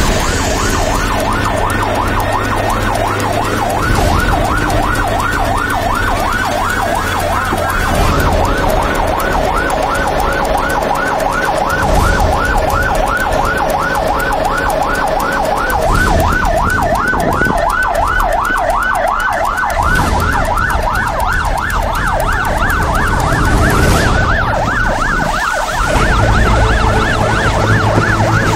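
Emergency vehicle's electronic siren sounding a continuous fast yelp, its pitch sweeping up again and again several times a second, over a low engine rumble.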